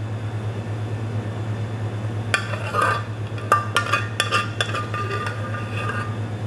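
Metal utensils clinking and scraping against a plate, a sharp clink about two seconds in and a run of ringing clinks a second later, over a steady low kitchen hum.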